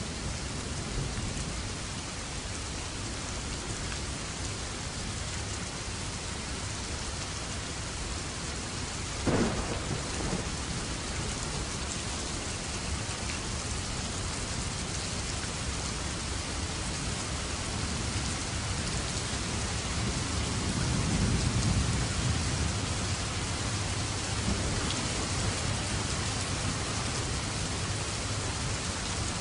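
Steady rain with thunder: a sharp crack about nine seconds in, and a low rumble that swells and fades about two-thirds of the way through.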